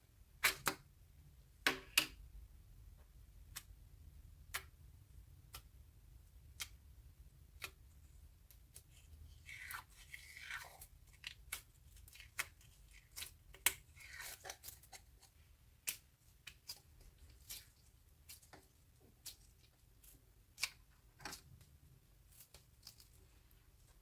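Slime being handled and mixed by hand: irregular sharp clicks and pops, with short crackling stretches about ten and fourteen seconds in.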